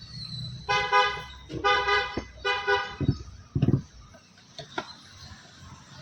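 A vehicle horn honked three times in quick succession, each honk about half a second long, followed by two short low thumps.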